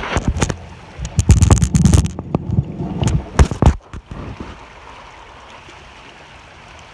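Loud, rough knocking and rubbing from the handheld camera's microphone being jostled for about the first four seconds, then the steady rush of a flowing stream.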